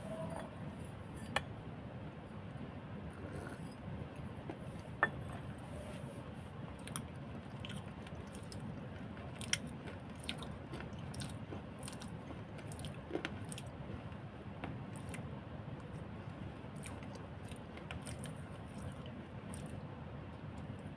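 Close-up chewing of food: soft wet mouth sounds with scattered sharp clicks and smacks, a few standing out, over a steady low background noise.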